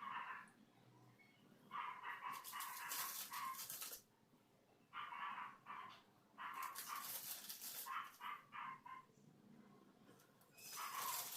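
A dog barking in three bouts of quick barks.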